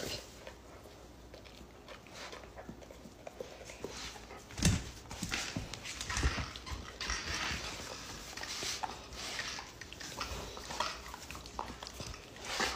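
A Doberman nosing and tugging at a cotton T-shirt worn over a man's head: scattered fabric rustling and soft bumps, with one sharper thump nearly five seconds in.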